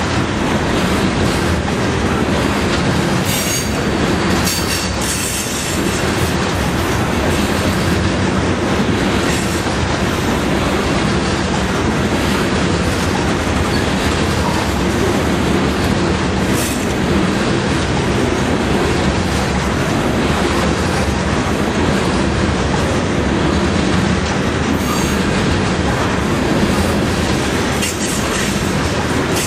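Loaded coal hopper cars of a long freight train rolling past in a steady rumble and clatter of wheels on rail. A few brief high-pitched wheel squeals come through, the first a few seconds in and another about halfway.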